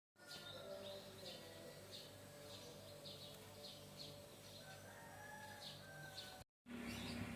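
Chickens peeping: faint short high chirps about one and a half times a second over a low steady hum. The audio drops out briefly near the end.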